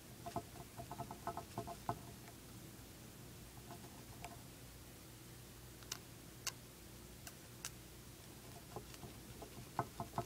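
Dwarf hamster gnawing a hard cheese chew: faint, quick clicky nibbles in bursts, a run near the start and another near the end, with a few sharper clicks between.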